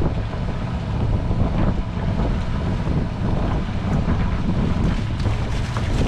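Wind buffeting the microphone over a steady low rumble of a boat at sea.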